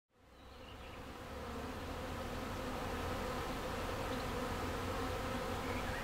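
Honeybees buzzing, a steady hum of many bees from a colony, fading in over the first couple of seconds and then holding steady.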